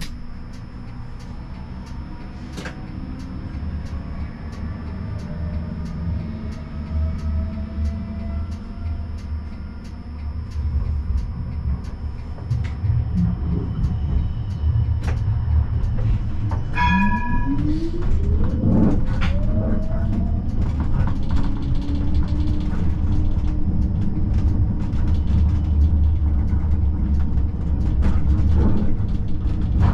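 Siemens Combino tram running on street track with a steady low rumble that grows louder past the middle. Its traction motor whine rises in pitch as the tram accelerates and then holds steady at cruising speed. A brief high ringing tone sounds about halfway through.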